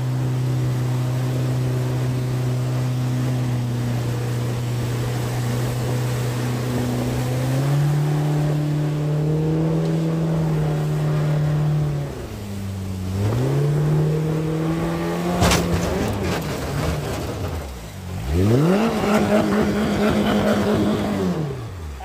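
Mercury outboard jet motor pushing a jon boat up a shallow rapid. Its pitch steps up about a third of the way in and dips briefly about halfway. A single sharp knock comes about two-thirds in. Near the end the motor revs hard to a high, steady pitch under full load, then drops off.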